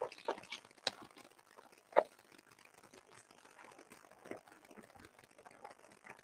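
Rustling, crinkling and scattered knocks of things being handled and moved close to the microphone, with one sharper knock about two seconds in.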